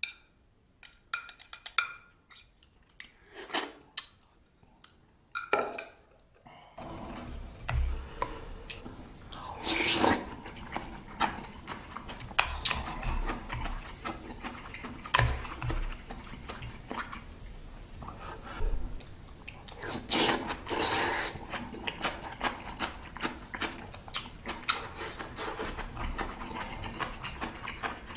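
Close-up eating sounds of someone eating instant ramyeon noodles. For the first several seconds there are separate short clicks and smacks, then from about seven seconds in there is continuous chewing with wet mouth sounds.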